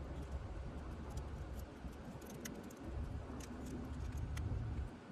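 Scattered light metallic clicks and taps of keys and a rekeyed door lock cylinder being handled, over a low handling rumble.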